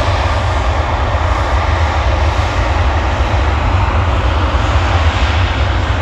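Ryanair Boeing 737's twin jet engines at take-off thrust during the take-off roll: a loud, steady jet roar with a heavy low rumble underneath.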